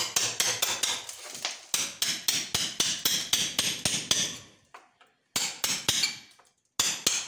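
Hammer driving a steel chisel into a stone window sill in quick repeated blows, about four a second, with two short pauses. It is chipping the sill free of the wall to test how far it is set in before demolishing it.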